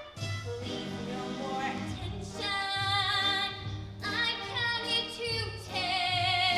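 A woman singing a show tune over instrumental accompaniment, holding several long notes with a wide vibrato.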